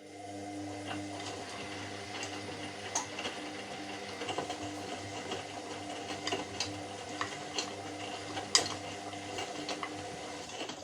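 Washing machine running: a steady motor hum with several steady tones, and irregular light clicks and knocks from inside the drum, the loudest about eight and a half seconds in. It cuts off suddenly at the end.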